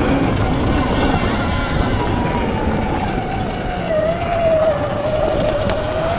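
79bike Falcon Pro electric dirt bike's motor whining while riding over a heavy low rumble. The whine drops in pitch as the bike slows about four seconds in, then rises again as it picks up speed.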